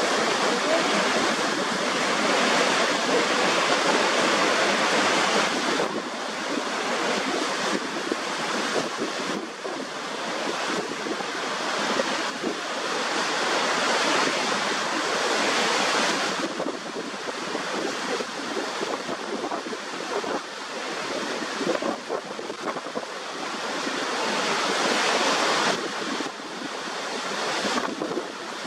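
Niagara Falls pouring over its brink: a loud, steady rush of falling water that swells and eases every few seconds.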